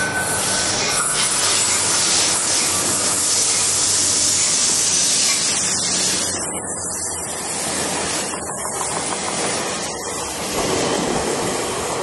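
An ACE commuter train of bilevel passenger cars passing close by, a loud steady rush of wheels on rail. About ten seconds in, the sound gives way to the lower rumble of another train approaching.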